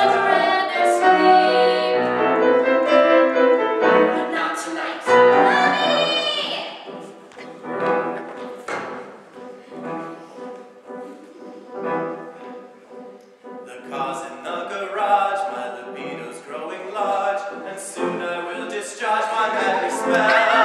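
Live musical-theatre singing with piano accompaniment. A long held note with wide vibrato about six seconds in, then a few softer seconds, then the singing picks up again.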